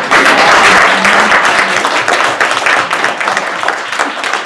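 Audience applauding: a dense patter of many hands clapping, loudest at the start and slowly tapering off.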